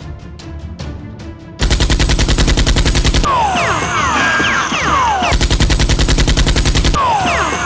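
Movie-style automatic gunfire sound effects: music with a steady pulse, then about one and a half seconds in, long bursts of very rapid machine-gun fire. The bursts alternate with stretches of short falling whistles and pings, like ricochets.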